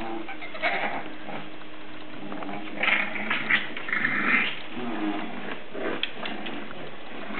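English bulldog puppies, seven weeks old, crying and whining as they play-fight, in scattered high-pitched cries with the loudest cluster about three to four seconds in.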